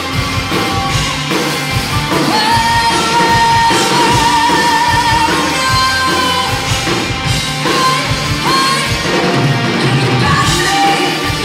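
Live pop-rock band with a woman singing lead over electric guitars and drums, heard from the audience in a large hall. About two seconds in she holds long notes with vibrato.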